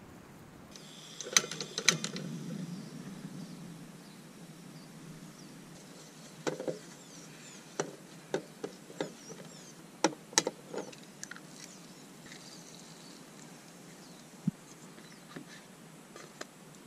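Metal fork and utensils clinking and scraping against a camping frying pan and plates: scattered sharp clicks, the two loudest about a second in, then a run of lighter clinks in the middle.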